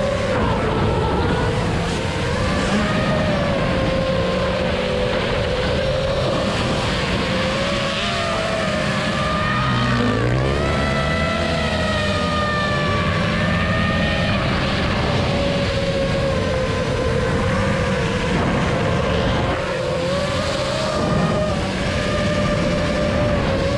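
5-inch FPV racing quadcopter's motors and tri-blade propellers whining, the pitch wandering up and down with throttle, dipping and then climbing sharply about ten seconds in, over a rush of air noise.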